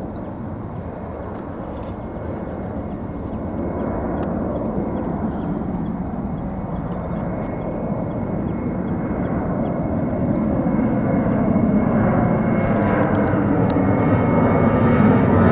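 Boeing 737-700's twin CFM56-7B jet engines at climb thrust during a go-around after an aborted landing: a steady jet noise that grows gradually louder as the airliner climbs overhead.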